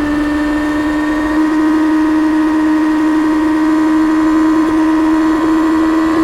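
Stock 2024 Kawasaki Ninja ZX-6R's 636 cc inline-four engine and stock exhaust running steadily under way, holding nearly constant revs with a slight rise near the end.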